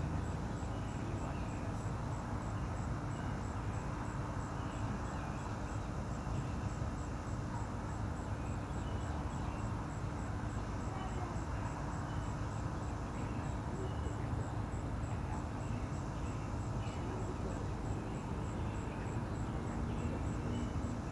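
Steady outdoor background rumble with a low hum, and faint scattered bird chirps.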